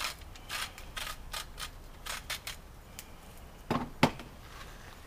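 Dishes and utensils being handled on a table: a run of light clicks and rustles, then two sharp knocks close together near the end, the second the loudest.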